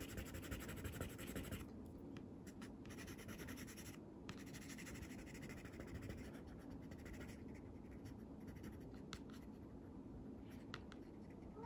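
Colored pencil scratching faintly across watercolor paper in many short, repeated strokes.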